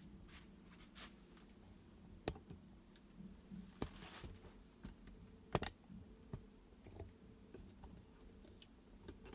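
Faint, scattered light clicks and knocks. Three sharper clicks stand out, the loudest a little past halfway.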